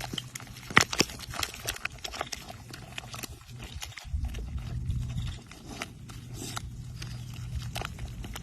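A dog making low grunting sounds, stronger after about four seconds in, with many small clicks and taps.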